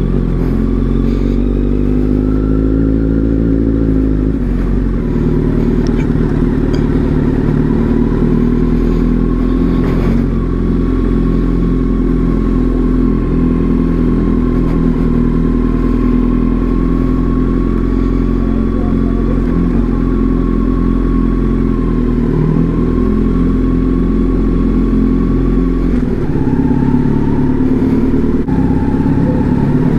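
Kawasaki Z900's inline-four engine running as the bike is ridden at a gentle, steady pace, still coming up to operating temperature. The pitch climbs over the first few seconds, drops back, and changes again near the end.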